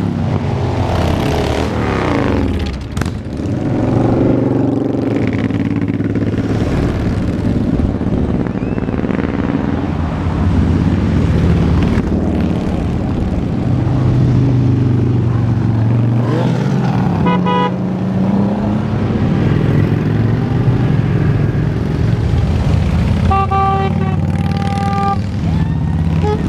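Cruiser and touring motorcycles riding past one after another at parade pace, engines running loud and steady, the pitch falling as bikes go by. A horn beeps briefly about two-thirds of the way in and sounds again for a couple of seconds near the end.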